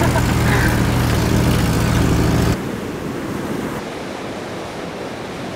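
A vehicle's engine runs with a steady low drone, heard from inside the cabin. About two and a half seconds in it cuts abruptly to the even rush of heavy surf breaking.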